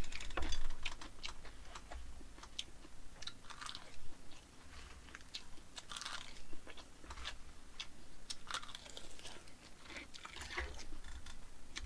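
A person chewing a mouthful of food close to the microphone, with irregular crunches and wet mouth clicks, a few each second.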